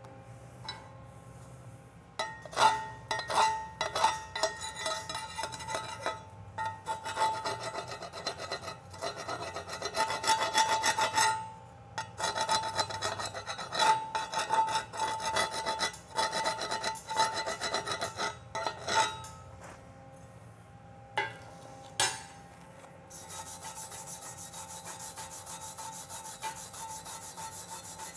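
Slag being cleaned off a 7018 fill pass on steel plate: a long spell of rapid, irregular scraping and tapping of metal on metal, with the plate ringing. Then two sharp knocks a little after two-thirds of the way in, followed by steady wire brushing of the weld.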